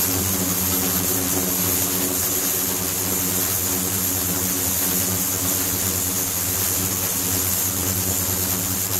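Flowing-water ultrasonic cleaning rig running: a steady machine hum made of several low tones, under a constant hiss, as water streams over a stainless steel tray.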